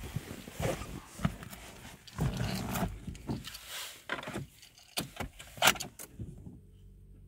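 Clicks, knocks and rustling from someone moving about inside a Renault Clio's cabin and handling its controls. About six seconds in these stop and a steady low hum takes over.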